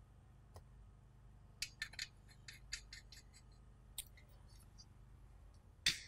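Light clicks and taps of metal car air-conditioning parts being handled: a quick run of clicks about two seconds in, a single click about four seconds in, and a louder knock near the end.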